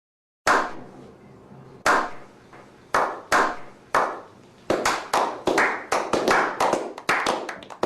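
A series of sharp slaps or claps, sparse at first, then coming quickly and irregularly for the last three seconds.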